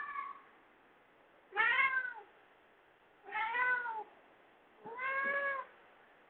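A domestic cat meowing repeatedly: the end of one meow, then three drawn-out meows about a second and a half apart, each rising and then falling in pitch.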